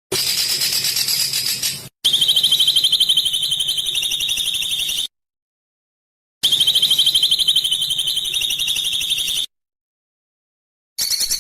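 Songbird's harsh, rapid buzzing trill, the rough 'besetan' chatter used in masteran recordings for training songbirds. A short high rattle leads straight into a trill of about three seconds; after a silence the same trill comes again, and another begins near the end.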